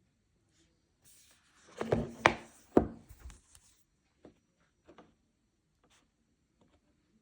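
Smartphone box and packaging being handled: rubbing and sliding, with three sharp knocks or clicks around two seconds in, then a few scattered light clicks.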